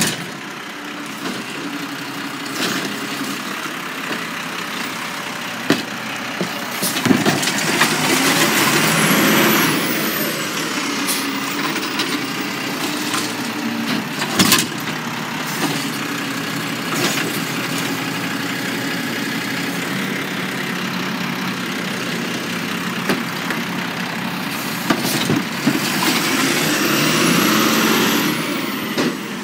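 Automated side-loader garbage truck running at the curb, its engine hum steady. Twice it grows louder with a hiss and a high rising-and-falling whine as the truck works, and a few sharp knocks and clanks ring out.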